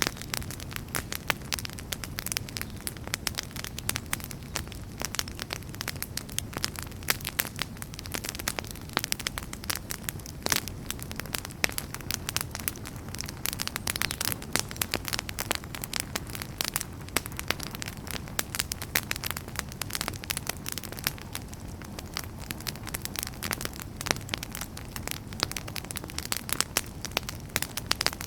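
Wood fire burning in a fireplace: dense, irregular crackling and popping of burning logs over a steady low rumble of the flames.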